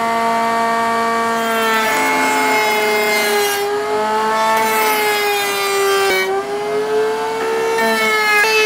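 Router mounted in a router table running at full speed, a steady high whine, with a half-inch round-over bit cutting along a wooden kayak paddle shaft. The pitch dips slightly now and then as the bit takes the load of the cut.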